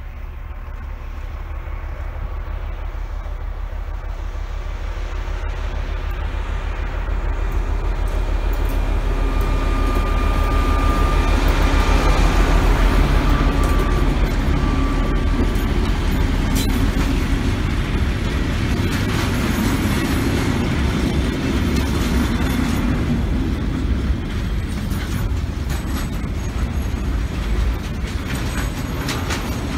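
Double-headed freight train with two Russian-built Ludmilla diesel locomotives: the engines' deep rumble grows as they approach and is loudest about twelve seconds in as they pass. After that the freight wagons roll by with steady wheel noise and clacking over rail joints.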